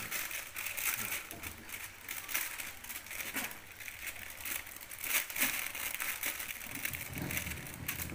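Clear plastic sheet crinkling and rustling as hands press and smooth it over dough in a tray, in irregular crackles.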